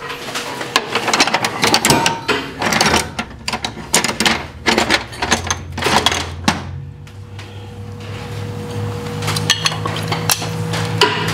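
Metal hand tools clinking and clattering, sockets and extensions being handled. A steady low hum comes in about halfway.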